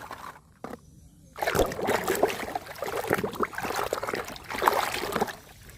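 Water splashing and trickling as a muddy toy vehicle is washed by hand, starting about a second and a half in and easing off near the end.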